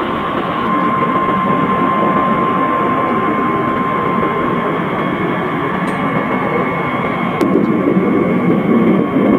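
B-52 Stratofortress's eight jet engines at takeoff power as the bomber lifts off and climbs: a steady roar with a high whine, growing louder near the end.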